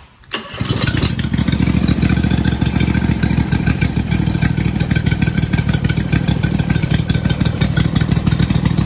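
Honda GX620 20 hp air-cooled V-twin engine started on its electric starter, catching about half a second in, then running steadily with a rapid, even beat.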